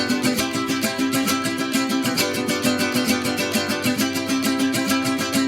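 Background music: a quickly picked guitar-like melody of plucked notes.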